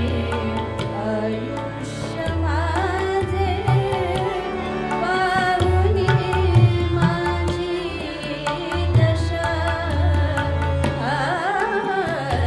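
A woman singing a Marathi song in an ornamented style, with pitch glides, accompanied by harmonium and tabla. The held reed notes of the harmonium run steadily under the voice, and the deep bass strokes of the tabla's larger drum sound repeatedly.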